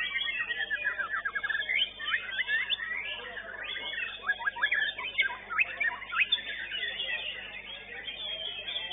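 White-rumped shamas singing at a song contest: a dense, unbroken stream of quick chirps, sharp whistled sweeps and fast rattling trills, with a rapid trill in the first second and several steep whistled downsweeps in the middle.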